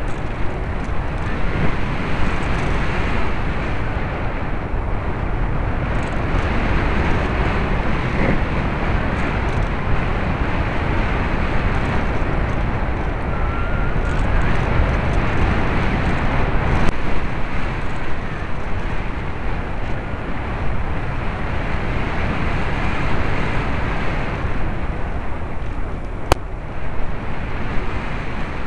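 Steady rush of wind and motor noise on a camcorder carried aboard a radio-controlled model airplane in flight, with a single sharp click near the end.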